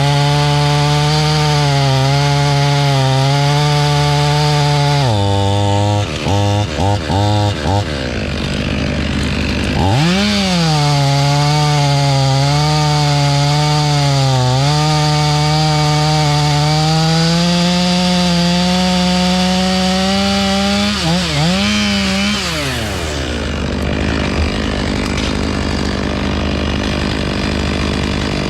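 Gas chainsaw cutting wood at full throttle, its pitch sagging and wavering under the load of the cut. About five seconds in it drops off and is blipped several times. It then climbs back into a second long cut, blips again a few times and settles to a steadier running near the end.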